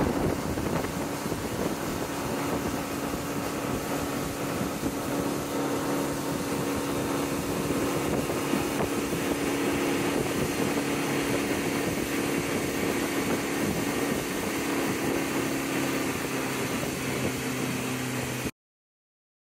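Fishing boat's engine running steadily: a constant hum with a rushing noise over it. It cuts off suddenly near the end.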